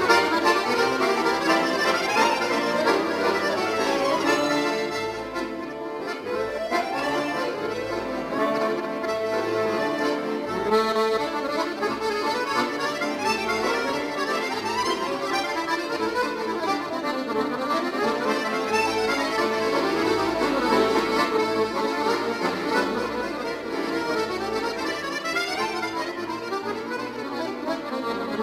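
Two chromatic button accordions playing a waltz duet, with quick runs sweeping up and down; the playing drops softer about five seconds in, then builds again.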